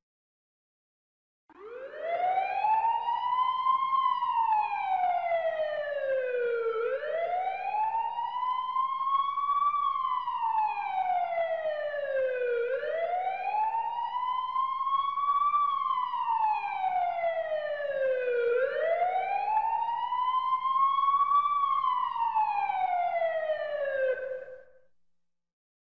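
Emergency siren wailing: four slow rises and falls in pitch, each about six seconds long, starting about a second and a half in and fading out near the end.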